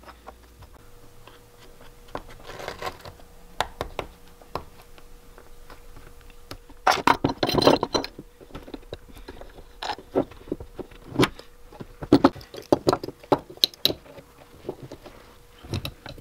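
Soaked hickory strips and steel C-clamps being handled on a wooden workbench: irregular clicks, knocks and scrapes as the strips are bent around a form and clamped, busiest about seven seconds in and again around twelve to fourteen seconds. A faint steady hum runs underneath.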